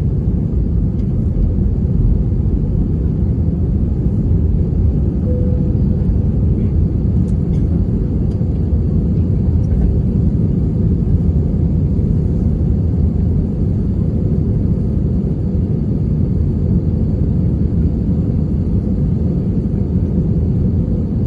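Steady loud rumble of an Airbus A321neo's engines and airflow heard inside the passenger cabin, holding level with no rise or fall in pitch.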